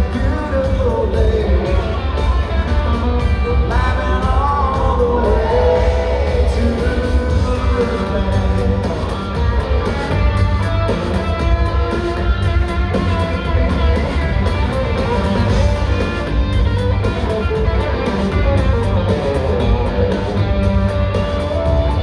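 Live country band playing through an arena PA, recorded from the crowd: a man singing over electric guitar, bass and drums, with heavy bass and the echo of a large hall.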